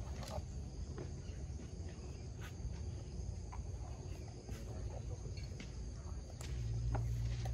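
Steady chirring of insects in the background, with a low rumble underneath that grows louder about six and a half seconds in, and a few faint clicks.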